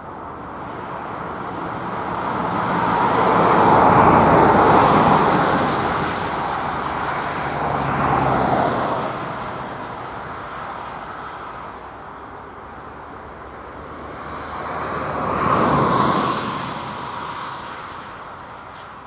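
Road vehicles driving past, three passes that each swell and fade away; the loudest is about four seconds in, the others near eight and sixteen seconds.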